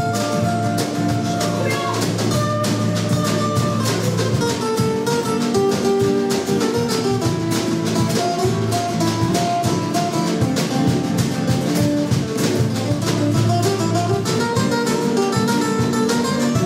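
Live band playing an instrumental passage: two acoustic guitars strumming, a fiddle playing and a drum kit keeping a steady beat.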